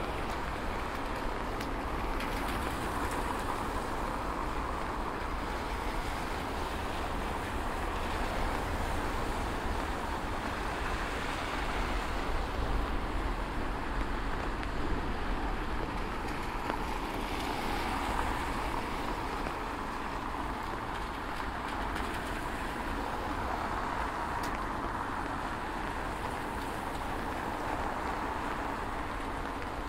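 Road traffic on a rain-wet city street: a steady wash of tyre and engine noise with a low rumble, swelling and fading several times as vehicles pass.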